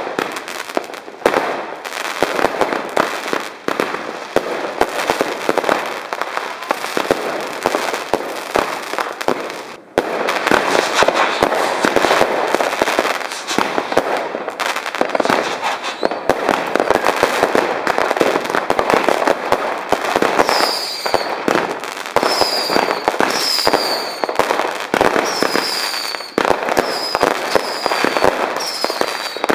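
New Year's Eve fireworks: a dense, continuous run of bangs and crackling as many rockets and batteries go off together. In the last third comes a string of short falling whistles, about one a second.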